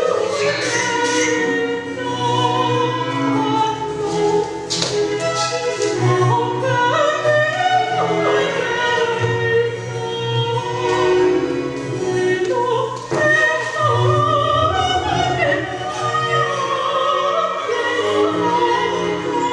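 Music: a sung operatic vocal line with vibrato over sustained classical-style accompaniment.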